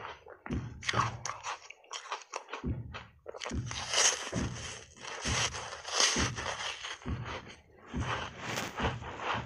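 Close-miked mouth sounds of biting and chewing a frozen foam ice bar coated in milk powder: sharp crunches, a short pause, then a big crunchy bite and steady chewing at about two chews a second.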